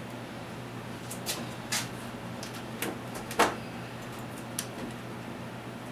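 Scattered knocks and cracks, about five in all and the loudest about three and a half seconds in, as pieces of model railroad mountain scenery are broken loose and pulled off the layout.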